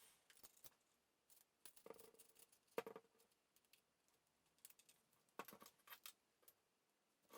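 Faint, scattered small clicks and taps with brief rustles, in three short clusters, the sharpest about three seconds in: hands handling a film camera and small tools.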